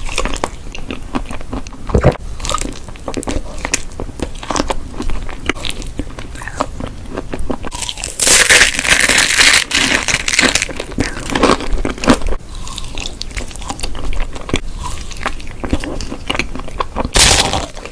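Close-miked eating sounds: a person biting into and chewing crunchy food, a run of sharp crackly crunches. About halfway through comes a dense, loud stretch of crunching lasting a couple of seconds, and there is another short loud crunch near the end.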